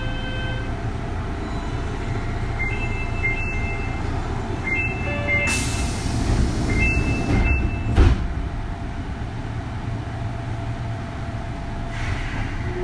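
Interior sound of a Kintetsu 3200 series electric train car with a Mitsubishi early GTO VVVF inverter: a steady low rumble, with steady tones that stop just after the start. Short two-pitch electronic tones repeat for about five seconds, a hiss rises in the middle, and a single loud thump comes about eight seconds in.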